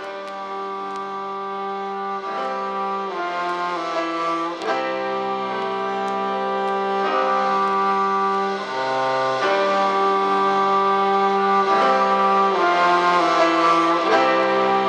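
Instrumental background music of slow, sustained chords that change every second or two, growing gradually louder.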